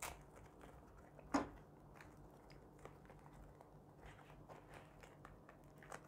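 Faint crinkling and rustling of plastic wrapping being pulled off a small remote control, with a sharp click about a second and a half in.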